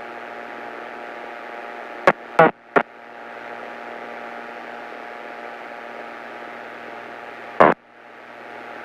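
Steady engine and cabin drone of a light single-engine airplane in a climb, heard through the headset intercom as an even hiss with a steady hum. Short sharp radio or intercom crackles cut in about two seconds in, three in quick succession, and once more near the end.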